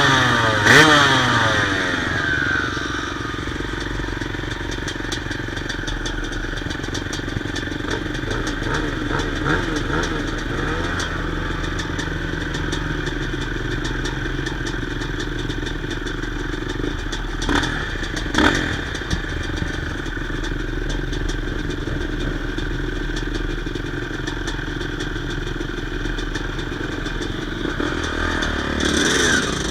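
Yamaha YZ250 two-stroke dirt bike engine running steadily, with short revs about a second in, twice around eighteen seconds in, and again near the end.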